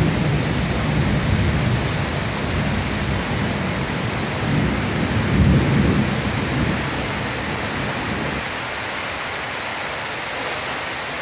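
Heavy rain pouring steadily, with a low rumble under it that swells about halfway through and dies away about eight seconds in.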